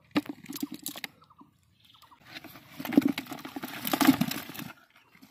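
Live climbing perch (koi fish) flapping and slapping against each other and the sides of a bucket, a wet pattering rattle that is loudest about three and four seconds in. A few sharp clicks come in the first second.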